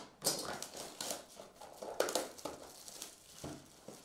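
Clear plastic shrink-wrap being torn off a cardboard trading-card box and crumpled in the hand: irregular crackling and rustling with a few sharp crackles.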